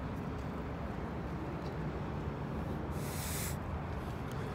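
Steady low outdoor background rumble, with one short breathy hiss about three seconds in: a smoker exhaling after a drag on a cigarette.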